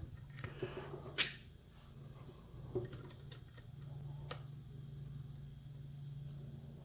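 Faint, sparse clicks and light scrapes of a metal lock pick working the pins of a pin-tumbler challenge lock, the sharpest click about a second in and another near four seconds, over a steady low hum.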